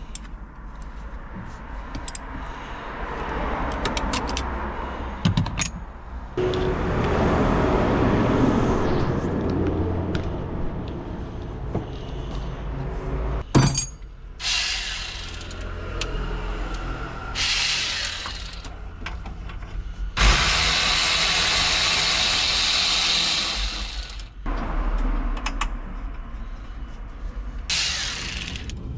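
Car repair work: several bursts of loud hissing, one lasting about four seconds, with a few sharp clicks over a steady low hum.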